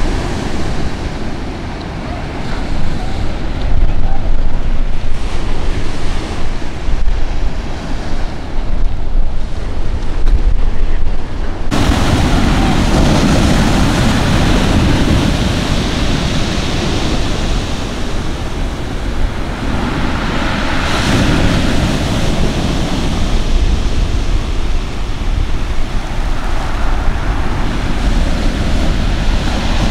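Waves breaking on a stony beach, with strong wind noise buffeting the microphone. Partway through the sound changes abruptly to a fuller, brighter surf that swells up a couple of times.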